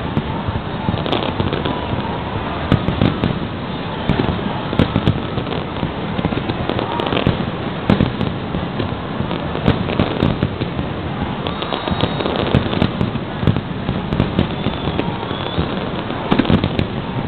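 Aerial fireworks shells bursting in a continuous barrage of bangs and crackles, with many sharp reports layered over a dense rumble.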